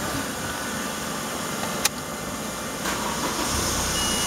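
A single sharp click about two seconds in, then near the end the car's ignition key is turned and a hiss with a low hum comes in, the starter cranking the engine to give the plugged-in tyre inflator power.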